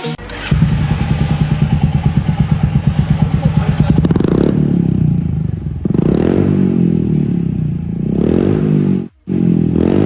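Royal Enfield Hunter 350's single-cylinder engine running through an aftermarket shorty exhaust. It idles with an even thump for the first few seconds, then is revved up and allowed to drop back three times, with a brief cut in the sound near the end.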